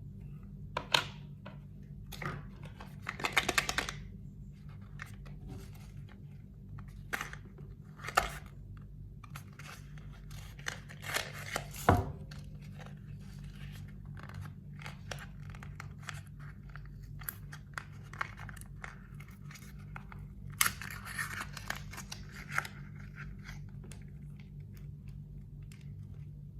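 Packaging being torn open and handled, with intermittent tearing and crinkling and scattered sharp clicks. The loudest is a sharp snap about twelve seconds in. A steady low hum runs underneath.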